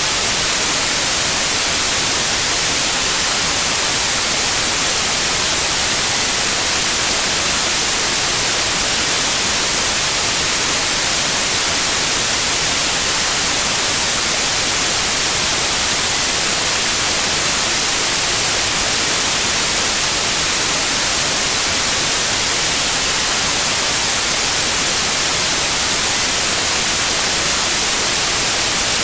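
Synthetic white noise, a steady even hiss, with a continuous pure 9645 Hz tone laid over it for tinnitus sound therapy. The tone cuts off a little past halfway through while the hiss carries on.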